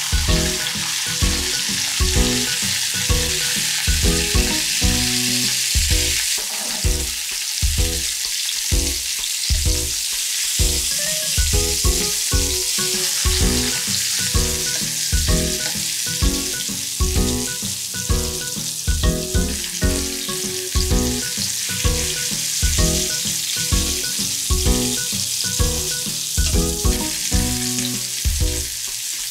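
Halved zucchini sizzling in oil in a frying pan, a steady hiss throughout, with light background music keeping a steady beat underneath.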